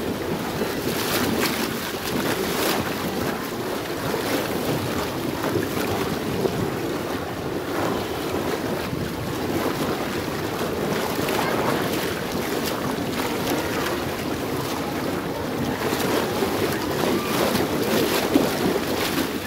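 Churning pool water rushing and splashing right against the microphone, a steady rush with many small splashes breaking through it.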